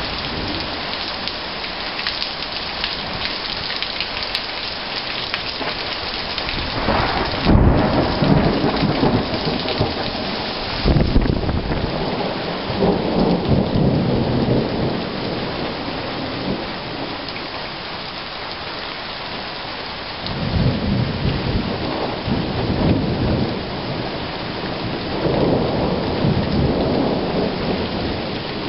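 Steady rain with repeated thunder: a sudden crack and rumble about seven and a half seconds in, a second sharp clap about eleven seconds in that rolls on for several seconds, then more rolling rumbles about twenty seconds in and again near the end.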